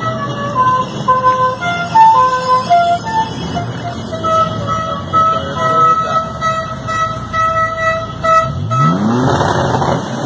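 Car horns of a caravan of classic Chevrolets honking: short toots at changing pitches, then a run of about eight evenly spaced beeps on one note, over the steady rumble of their engines. Near the end one engine revs up.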